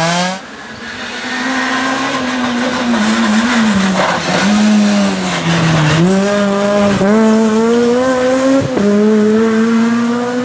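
Ford Fiesta rally car's four-cylinder engine driven hard at high revs. Its note dips sharply several times at the gear changes and climbs again in between.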